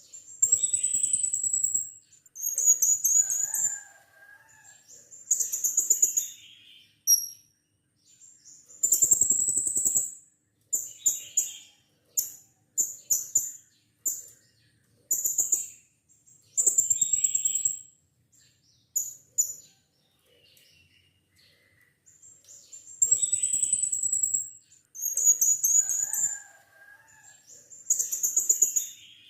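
Blue-crowned hanging parrot (serindit) calling: very high, shrill notes in short bursts of half a second to two seconds, repeated again and again with brief pauses, including a run of quick short chirps about midway.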